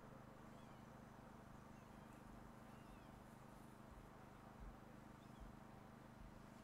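Near silence: a steady low hum, a few faint high chirps, and two soft low thumps a little past halfway.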